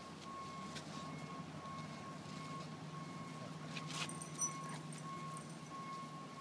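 Dogs wrestling and chasing on bare dirt, heard as a few faint scuffs and clicks, the loudest about four seconds in, over a steady high-pitched tone and a low hum.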